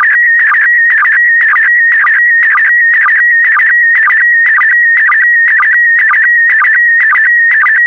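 Slow-scan TV (SSTV) signal in PD120 mode, sending a picture line by line. It is a continuous warbling tone whose pitch jumps with the brightness and colour of the image, broken about twice a second by a short lower sync pulse that marks each new pair of picture lines.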